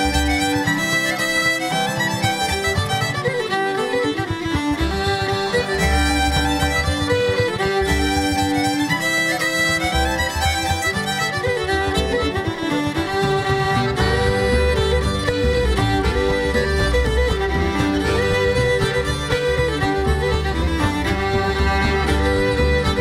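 Background music: a lively folk fiddle tune, a bowed fiddle melody over a low accompaniment.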